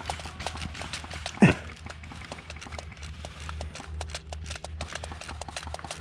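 A run of irregular sharp clicks and knocks over a steady low rumble, with one louder knock about one and a half seconds in.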